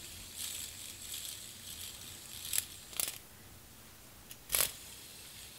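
Fidget spinner spinning in fingertips, its bearing giving a faint high whir for the first couple of seconds that then fades. Three sharp clicks follow, about two and a half, three and four and a half seconds in.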